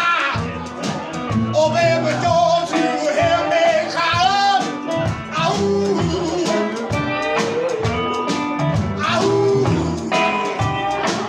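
Live outlaw-country/blues-rock band playing loudly: a man sings long, wavering held notes over bass, guitar and drums.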